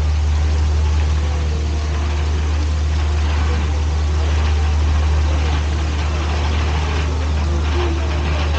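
Steady low drone of the Molly Brown paddle steamer's engine running while the boat is under way.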